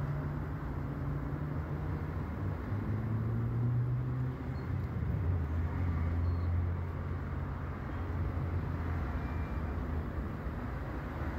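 A low, steady motor drone with a hum that drops slightly in pitch through the middle, over a background wash of traffic-like noise.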